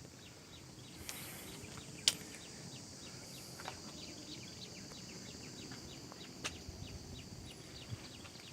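Outdoor ambience: insects droning steadily on a high note, with many short high chirps over it and a couple of sharp clicks, the loudest about two seconds in.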